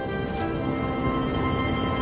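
Background music from a cartoon score, with long held notes over a low rumble.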